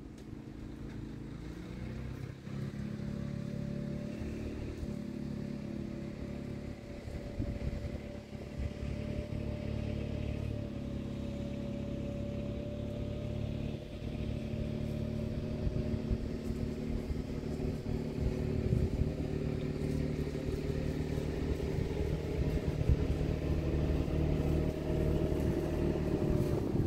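Side-by-side utility vehicle's engine running steadily as it drives across a lawn, growing louder as it comes closer.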